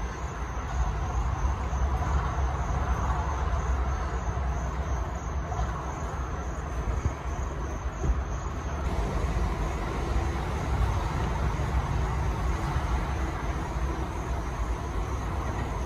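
Mazda CX-3 small SUV backing out of a parking space and pulling away on wet pavement: a steady low rumble with a hiss of noise over it.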